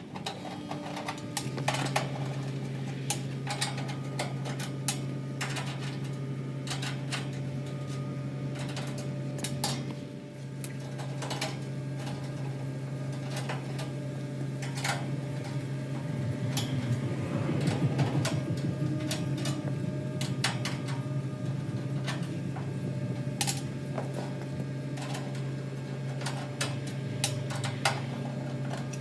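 Air-conditioner outdoor unit humming steadily, starting about a second in, with many sharp clicks and taps over the hum and a rougher, louder stretch in the middle. The condenser fan is not spinning, which the owner puts down to a bad run capacitor.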